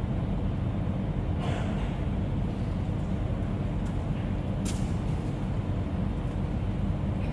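Steady low drone of electric fans running, with a soft rustle about a second and a half in and a faint sharp click near the middle.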